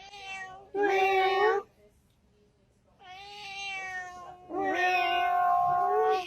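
A cat meowing: two long, drawn-out meows, the second longer and louder than the first.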